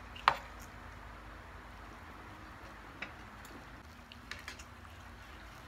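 A sharp clink of a spoon against a plate about a third of a second in, then a few lighter clicks of tableware and eating near the middle and end, over a faint steady low hum.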